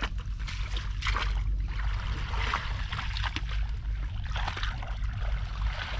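Shallow water sloshing and splashing in short, irregular bursts, over a steady low rumble.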